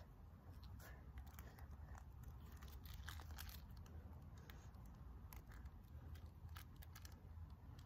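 Near silence: a low rumble with faint, scattered clicks and crackles.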